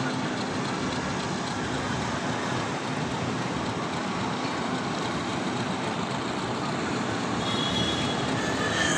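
Diesel locomotive hauling a passenger train slowly along the track, its engine and the train running as a steady, even noise.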